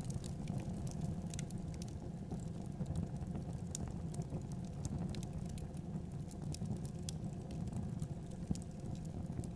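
Open fire in a clay stove crackling, with scattered pops and sizzles from the basted chicken roasting over it, over a steady low rumble.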